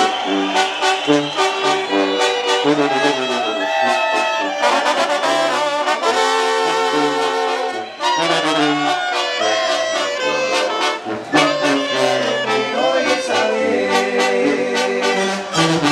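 Mexican banda playing an instrumental passage: trombones, clarinets and tuba over drums and timbales, with a harp in the ensemble, keeping a steady beat.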